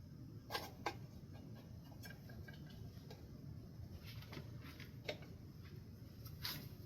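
A few sharp light clicks and taps, as of small fan parts being handled, over a faint low hum: two close together about half a second in, one about five seconds in, and another near the end.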